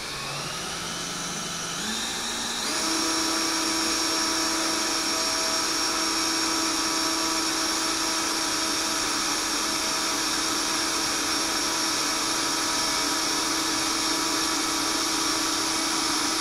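Cordless drill driving a small hydraulic gear pump in reverse, lowering the bed of a hydraulic dump cart. It is a steady motor whine that picks up speed in two steps about two and three seconds in, then runs even.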